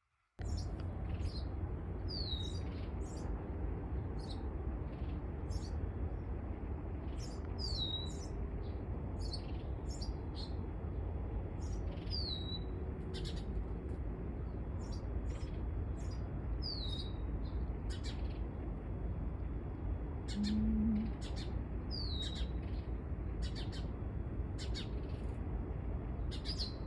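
Morning birdsong from several birds: many quick chirps, and one bird repeating a short downward-slurred whistle about every five seconds. A steady low rumble runs underneath.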